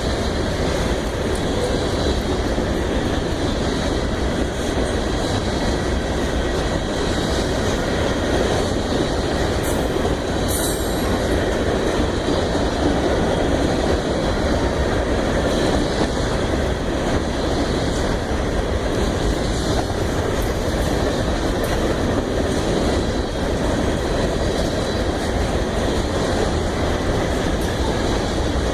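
Freight cars of a grain train rolling steadily past, with wheels on the rails giving a continuous rumble. A brief high wheel squeal comes about ten seconds in.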